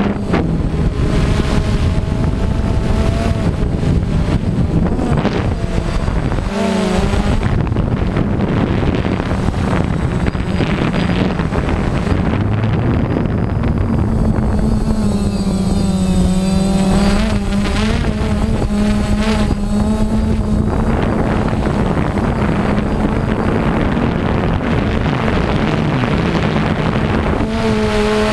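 Quadcopter drone's electric motors and propellers running loudly right beside the on-board camera's microphone. Their steady hum shifts in pitch as the rotor speeds change, dipping and rising again about halfway through.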